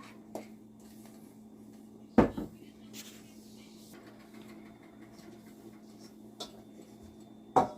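Two sharp knocks of kitchenware, about two seconds in and near the end, with a few lighter clinks between, over a steady low hum.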